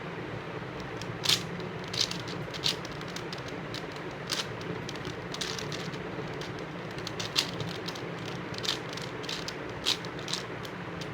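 A plastic 5x5 Rubik's cube being turned by hand, giving irregular sharp clicks and clacks as its layers turn, about a dozen over a steady background hum.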